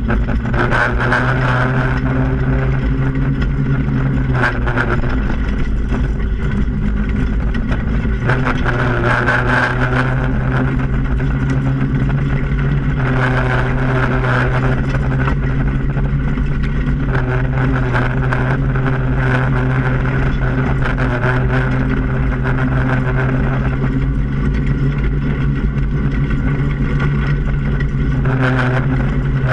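Off-road go-kart engine running steadily as the kart drives along, heard on board, its note rising and falling a little with the throttle.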